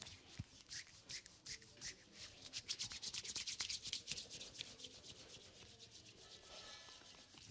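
Bare hands rubbing a cream-coated foot and shin in quick, repeated massage strokes, a soft skin-on-skin rubbing that speeds up into a rapid run in the middle.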